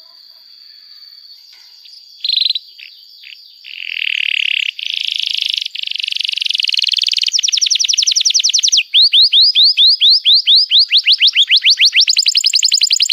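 Domestic canary singing: after a quiet first two seconds, it gives short bursts and then long rolling trills. It follows them with rapid runs of rising whistled notes that slow to about four or five a second.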